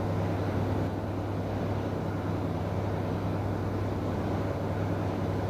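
Steady low hum with a faint hiss of background noise, without ticks or other events.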